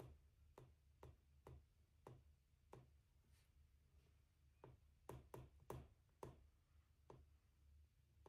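Faint clicks of a stylus tip tapping on a tablet's glass screen while writing, irregular at about two a second, with a quicker cluster about five seconds in.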